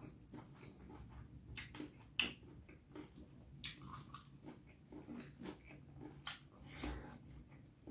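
Close-miked chewing and wet mouth smacks of a person eating beef curry and rice, as a run of irregular clicks and smacks with one sharper click about two seconds in.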